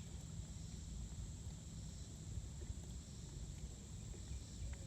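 Quiet outdoor ambience: a steady high-pitched insect drone, such as crickets, over a low rumble, with a few faint ticks.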